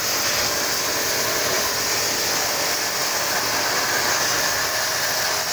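Small pressure washer spraying a jet of water from its gun onto a motorcycle, a steady hiss of spray with the pump's pressure turned right down.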